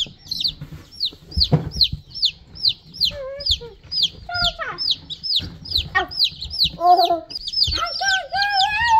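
Baby chicks peeping constantly: short, high, falling chirps, several a second, from a group of newly hatched chicks in a brooder. A few soft knocks of handling sound among them.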